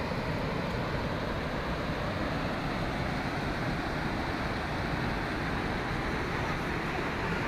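Water rushing through the open spillway gates of the overflowing Sardar Sarovar Dam: a steady, deep, unbroken noise.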